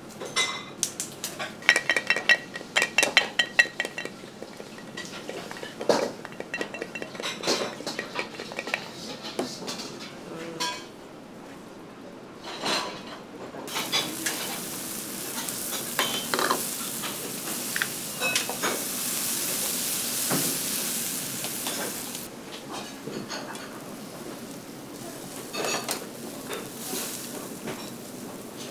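Metal utensils clinking and knocking against bowls and a wok, some strikes ringing. A steady hiss from the wok of bubbling broth comes in suddenly partway through, lasts about eight seconds and cuts off, followed by more scattered clinks.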